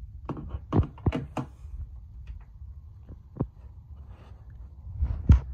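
Handling noise from a hand-held phone being carried about: a quick run of sharp knocks in the first second and a half, then a few scattered clicks, over a low rubbing rumble.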